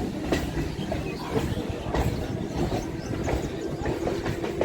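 Electric suburban local train running along the track, heard from inside the coach: a steady rumble of wheels on rail with scattered clicks as the wheels pass rail joints. A steady hum joins in the second half.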